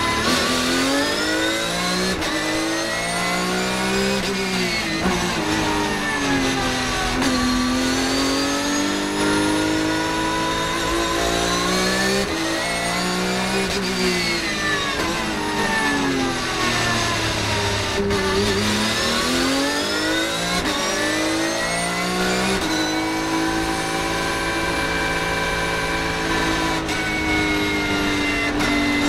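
Porsche 911 GT3 Cup (991.1) race car's flat-six engine heard from inside the cockpit at full racing pace, its pitch repeatedly rising under acceleration, dropping sharply at upshifts, and falling away when it slows for corners. Near the end it holds a high, steady note.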